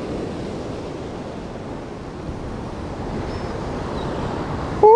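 Surf washing against jetty rocks, a steady rushing noise, with wind on the microphone.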